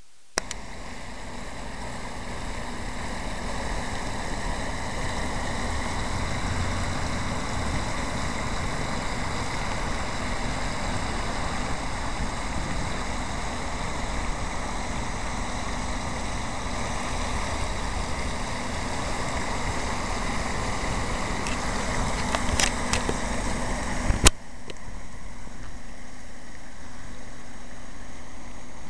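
Water spilling over the rim of a round stone fountain basin and splashing into the pool below, a steady rush. A sharp knock comes about 24 seconds in, and the rush is quieter after it.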